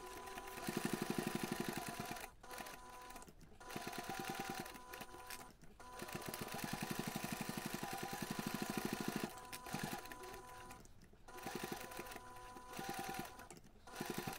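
Domestic sewing machine basting layered fabric panels, its needle clattering in quick even strokes. It runs in short bursts and stops and starts several times.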